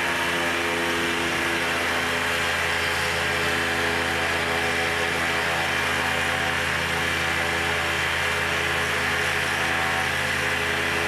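Rotax 912iS flat-four aircraft engine running steadily on the ground, its propeller turning, with no change in speed.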